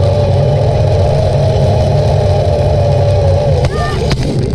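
Zip-line trolley pulleys rolling along the steel cable, a steady whine over a low rumble. The whine drops away about three and a half seconds in, and a sharp knock follows as the trolley slows.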